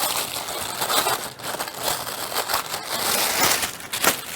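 Protective wrapping being peeled and pulled off a grass trimmer's metal shaft: a continuous crackle with many small snaps.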